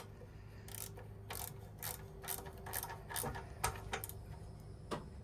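Ratchet wrench clicking in short strokes, about two clicks a second, as the 1/4-inch bolts holding a small engine's ignition coil are tightened down.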